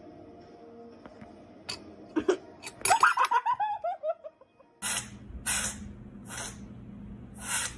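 A person laughing in a falling run of short pulses. Then a kitten sneezing four times, short sharp hissy sneezes about a second apart, the last one the loudest.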